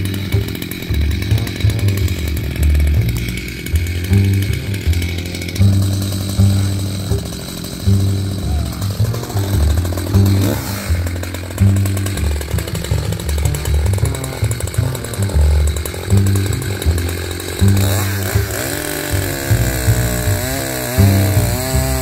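Gas chainsaw running, its pitch wavering near the end as the throttle changes, under background music with a heavy, regular beat.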